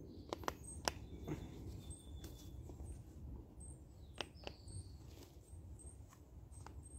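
Faint scattered light clicks and taps from handling, with a few short high bird chirps.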